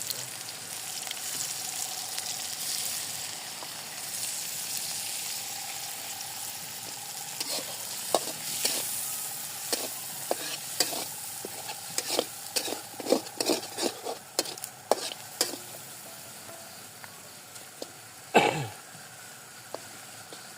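Food frying in hot oil in a pan, with a steady sizzle. Through the middle stretch a utensil scrapes and clicks against the pan, and near the end there is a single loud knock.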